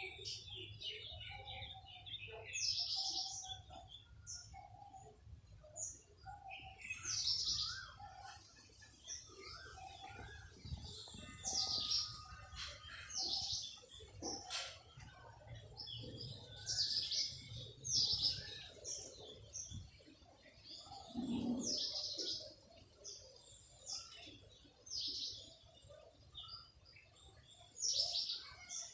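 Small birds chirping, with short high calls every second or two, and a run of low, evenly spaced notes through the first seven seconds or so.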